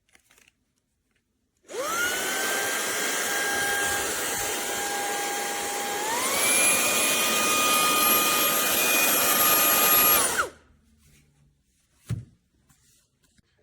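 Fanttik Slim V8 APEX cordless handheld car vacuum switching on with a rising whine and running steadily, then stepping up to a higher speed with a higher whine partway through, before shutting off. A short thump follows near the end.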